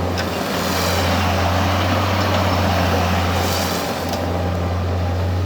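New Holland LX565 skid steer's diesel engine running steadily with a deep hum. From about half a second to nearly four seconds in, the sound turns fuller and noisier before settling back.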